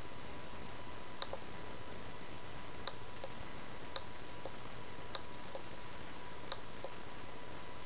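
Computer mouse button clicked five times about a second apart, each a sharp press followed by a softer release, as warp points are grabbed and dragged. Steady hiss runs underneath.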